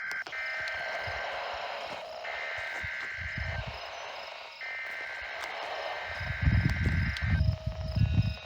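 Three buzzing digital SAME header bursts of an Emergency Alert System test from a NOAA Weather Radio station, received weakly through radio static: a short break after the first burst and about a second's break after the second.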